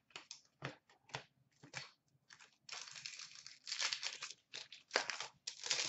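Crinkling and tearing of a hockey card pack's wrapper being opened by hand: a string of short crackles, then longer stretches of crinkling in the second half.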